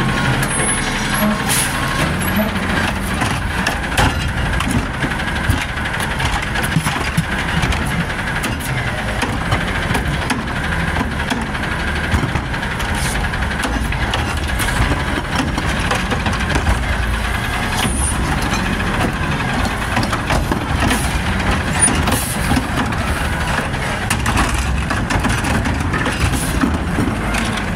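Garbage truck engine running loud and steady at high revs, with a steady mechanical whine and scattered clanks.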